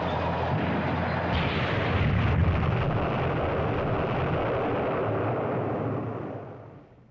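Film sound effects of explosions blowing up a steel railway bridge: one continuous rumble of blasts, with a fresh, sharper blast about a second and a half in. It fades away near the end.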